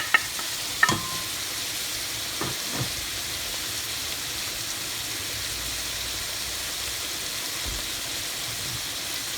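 Oil sizzling steadily as food fries in a pan. A few sharp clicks come in the first second, and two softer knocks about two and a half seconds in.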